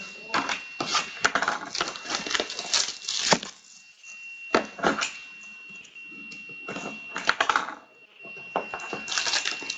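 A pack of hockey trading cards being opened and handled: irregular crinkling, rustling and clicking of the wrapper and cards, over a faint steady high whine.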